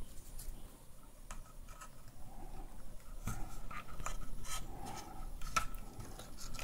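Faint scratching and small clicks of a small hand tool working wires into a Dyson V10's plastic handle housing, with the clicks coming a little more often in the second half.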